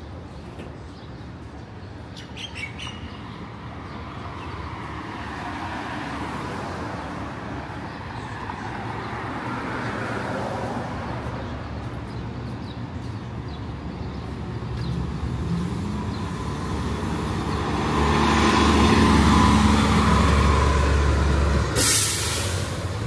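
City street traffic, growing louder as a heavy vehicle's engine passes close a few seconds before the end, followed by a brief hiss.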